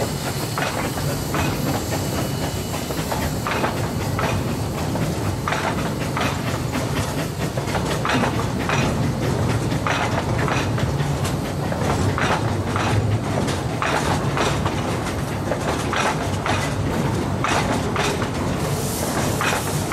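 Narrow-gauge hopper wagons rolling slowly past, a steady low rumble with irregular clicks and clacks as the wheels cross the rail joints.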